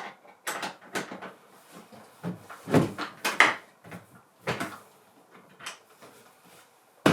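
Old wooden door being fitted on its hinges and tried: an irregular string of wooden knocks and scrapes, with a sharp knock near the end.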